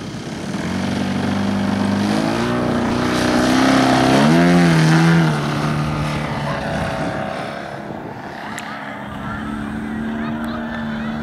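Radio-controlled aerobatic model plane's engine running up for takeoff, its pitch and level rising over the first five seconds, then falling off suddenly just after five seconds as the plane lifts off and climbs away.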